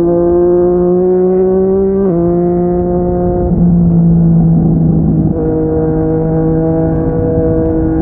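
Yamaha MT-09's inline three-cylinder engine running through a Yoshimura R55 slip-on exhaust at steady riding revs. Its note shifts abruptly in pitch about two, three and a half, and five seconds in, with a brief dip in loudness at the last shift.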